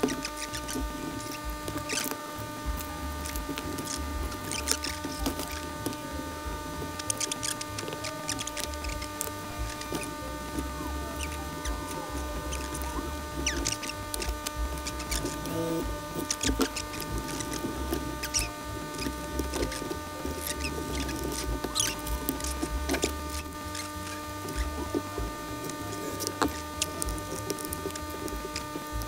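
Scattered small clicks, taps and rustles of hand tools and plastic packaging being handled on a desk, over a steady electrical hum.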